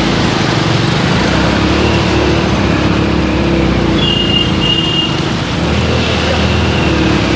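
Road traffic: motor vehicle engines running steadily in a busy street, with a brief high two-part tone about four seconds in.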